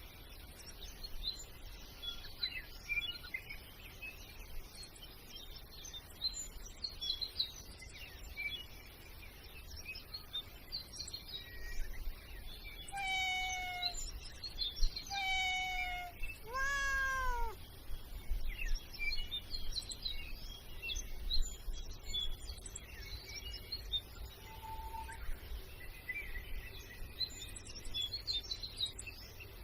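A cat meows three times in a row about halfway through, the last meow rising and then sliding down in pitch, over a background of small birds chirping.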